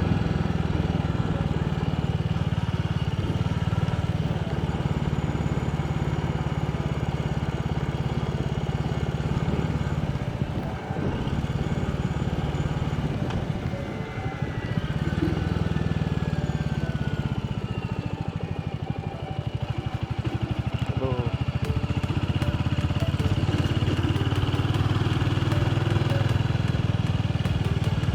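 Small motorcycle engine running steadily while being ridden along a road, easing off briefly a few times midway before picking up again.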